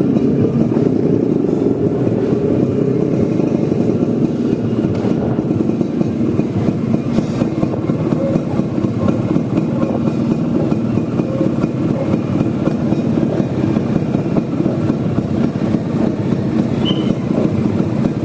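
Vespa scooter engine running steadily on the move, under a constant rush of road noise.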